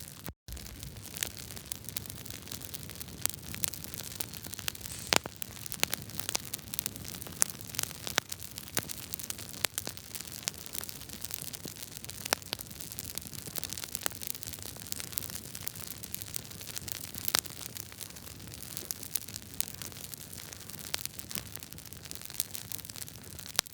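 Wood fire crackling in a fireplace: a steady hiss with frequent sharp, irregular pops and snaps from the burning logs.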